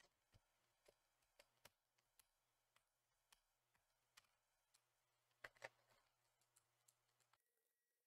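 Near silence: faint, irregular small clicks, about one or two a second, with a slightly louder pair of clicks about five and a half seconds in, over a faint low hum that cuts off shortly before the end.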